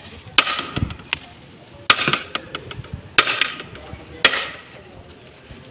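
Steel serving spoon scooping rice and knocking against a large aluminium biryani pot, four strokes a little over a second apart, each a sharp hit with a short scraping tail.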